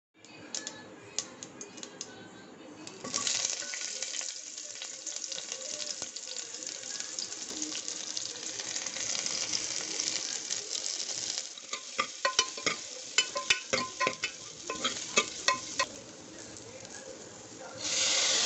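Food sizzling in hot oil in a pan while it is stirred with a spoon, which knocks against the pan in a quick run of taps in the second half. The sizzle starts about three seconds in and grows louder just before the end.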